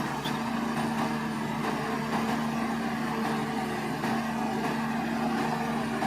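Bulldozer's diesel engine running steadily at a constant pitch, with a wash of mechanical noise from the working machine.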